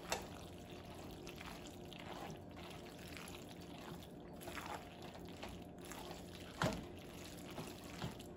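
Elbow macaroni being stirred into a thick cheese and cream sauce: faint wet squishing, with a few light knocks, the clearest one near the end.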